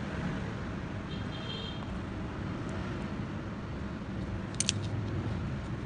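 Steady low background rumble, with a faint short high tone a little over a second in and a brief cluster of sharp clicks about four and a half seconds in.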